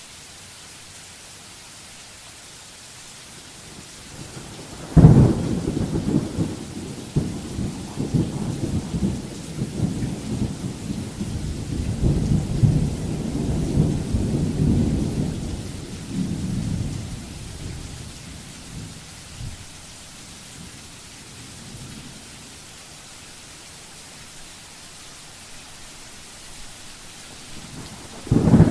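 Steady rain with a thunderclap about five seconds in, a sudden sharp crack that rolls on as a low, rising and falling rumble for around twelve seconds before fading back to the rain; a second thunderclap starts at the very end.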